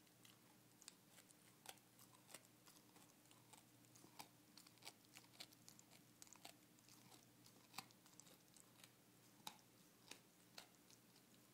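A Havanese dog gnawing on a chew: faint, irregular crunching clicks and snaps, several a second, with a few louder cracks along the way.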